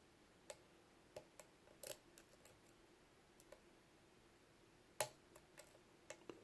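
Faint, irregular metallic clicks of a lock pick working the pin stacks of a Lockwood 356S63 padlock as single pins are lifted and set, with one sharper click about five seconds in and a few more near the end.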